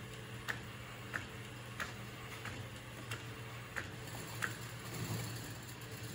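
Epson P405 DTF printer printing onto film: sharp clicks about every two-thirds of a second as the print-head carriage shuttles back and forth, over a low steady hum.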